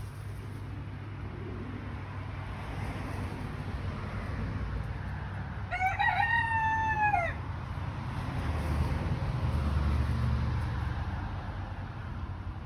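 A rooster crows once, about six seconds in: one drawn-out call that falls in pitch at the end. A steady low rumble runs underneath.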